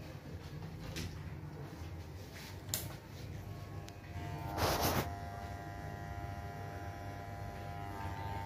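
Corded electric hair clippers buzzing steadily as they cut short hair, with a few light clicks and a brief loud rush of noise about halfway. Background music with steady tones comes in over the buzz from about halfway on.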